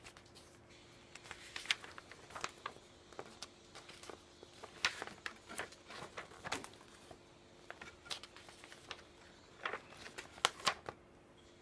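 Paper pages of a model-kit instruction booklet being flipped through by hand: faint, scattered paper flaps and rustles at irregular intervals.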